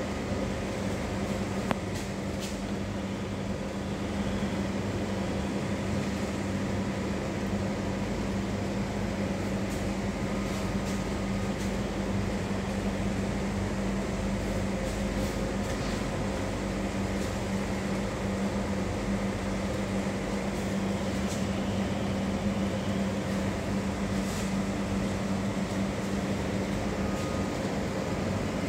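Steady electrical hum of a medium-voltage switchgear room, with one strong low tone and a few fainter higher tones, and a few faint clicks.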